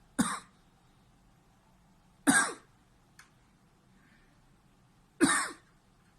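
A man coughing in three short, sharp single coughs, the second about two seconds after the first and the third about three seconds after that. These are reflex coughs set off by pressing on a schwannoma of the right vagus nerve in his neck, which stimulates the nerve's afferent fibres.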